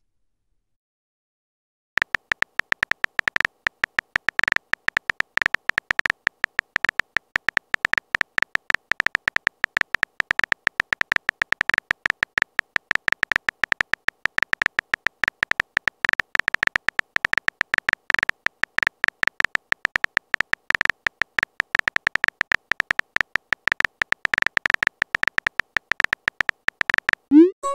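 Phone keyboard typing sound effect: rapid, irregular clicky taps starting about two seconds in, as a text message is typed. At the very end comes a short rising chime, the message-sent tone.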